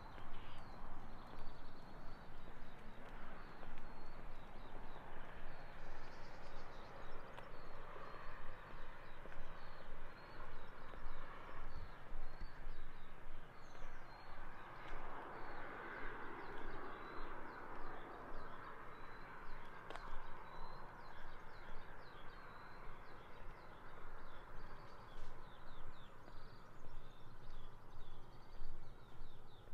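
Countryside ambience: small birds chirping in short repeated notes over a steady rushing background that swells about halfway, with the walker's footsteps on the path.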